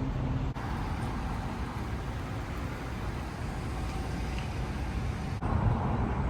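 Steady street traffic noise, a low rumble with no distinct events, shifting abruptly about half a second in and again near the end.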